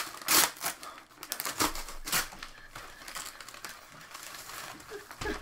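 Gift wrapping being torn and crumpled by hand as a present is unwrapped: irregular crinkling and ripping, with a few louder tears in the first couple of seconds.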